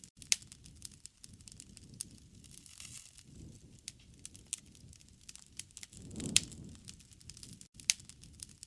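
Campfire crackling: a steady run of sharp wood pops and snaps over a soft low rush of flame, which swells briefly about six seconds in along with one of the loudest pops.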